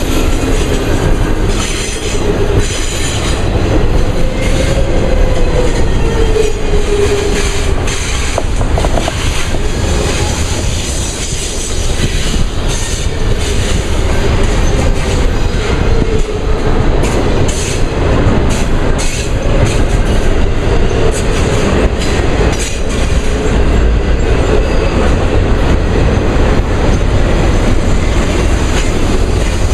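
An intermodal freight train's cars rolling past at speed: steel wheels clicking over rail joints, with a steady rumble and a faint wavering wheel squeal.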